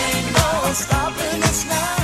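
Background music: an upbeat song with a steady beat and a singing voice.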